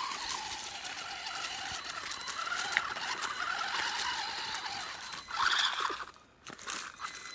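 WLtoys 12428 RC crawler driving over dry leaves and gravel: its electric motor and gears whine while the tyres crunch over the litter. The sound dips out briefly about six seconds in.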